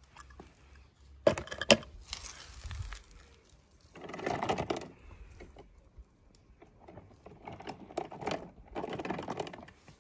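Handling noise: scattered clicks and short bouts of rustling, the loudest being two sharp clicks close together about a second and a half in.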